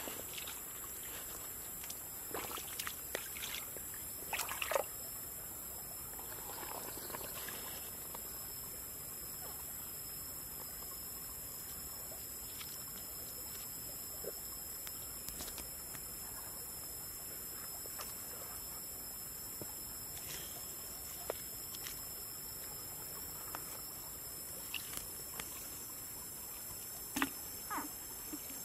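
Faint outdoor streamside ambience: a steady high hiss, with a few brief small splashes in the first five seconds and a couple of short knocks near the end.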